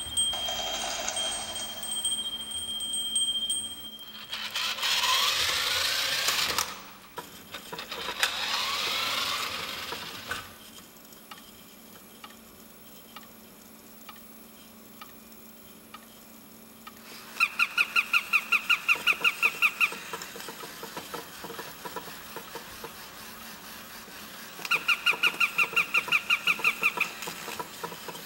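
Mechanisms of a chain-reaction installation built from hacked household appliances and toys: a chime near the start, two stretches of rushing noise, then two runs of rapid electronic beeping at about five to six pulses a second.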